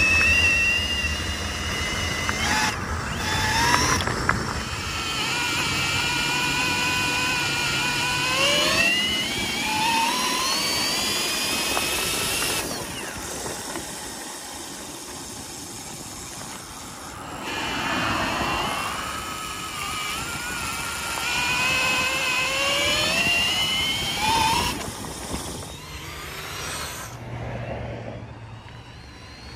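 Milwaukee brushless cordless drill driving a minibike through a chain and sprocket: its motor whine rises in pitch several times as the bike speeds up, with a quieter stretch in the middle, over tyre and wind noise.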